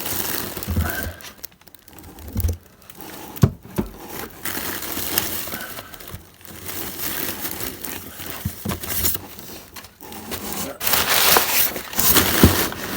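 Packaging being unwrapped by hand: irregular crinkling, crumpling and tearing of wrapping material, with scattered sharp clicks and a denser, louder stretch of crinkling near the end.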